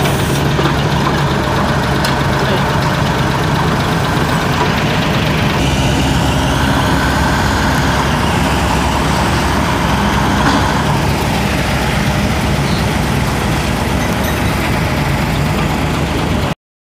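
Heavy diesel truck engine idling steadily, with a faint whine rising and falling in the middle. The sound changes abruptly about five and a half seconds in and cuts off just before the end.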